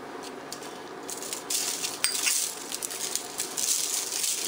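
Gloved hands rubbing a coarse salt, pepper and herb mix onto a raw chuck roast on a foil-lined baking sheet: crinkling foil and gritty rustling in short bursts from about a second in, with one sharp clink about two seconds in.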